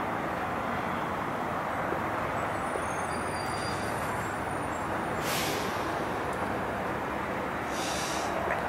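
Steady rumble of diesel big rigs, broken by two short hisses of compressed air about five seconds in and again near the end.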